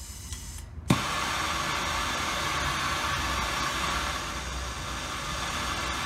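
Handheld gas torch being lit: a faint hiss of gas, a sharp click as it ignites about a second in, then the steady roar of the burning flame.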